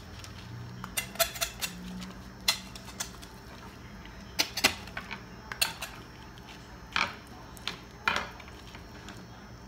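Kitchen knife clicking and scraping against a raw turkey wing's bone and a plastic cutting board while deboning: a dozen or so sharp, irregular clicks, with two longer scrapes near the end.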